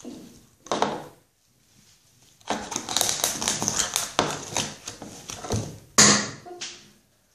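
Sock fabric rustling and a cut plastic bottle crinkling and scraping as the sock is pulled and stretched over the bottle's open end by hand, with a run of small clicks. It ends in a sharp knock about six seconds in and a lighter one just after.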